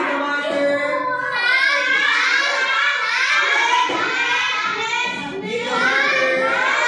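Many young children's voices chanting together in unison, a classroom chorus that runs on with only brief dips.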